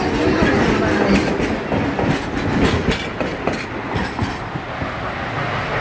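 Coal-fired narrow-gauge steam train rolling past, a steady rumble with the clatter of its wheels over the rail joints.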